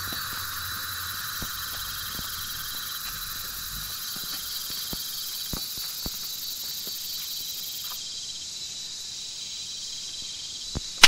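Steady chorus of tropical forest insects buzzing and trilling at several high pitches, one of them pulsing about five times a second. The highest-pitched buzz cuts off about eight seconds in, and a few faint ticks are scattered through it.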